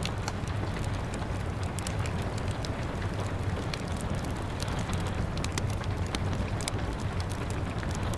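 Steady rain hiss with a low rumble, mixed with a wood fire crackling in many small, sharp pops scattered throughout.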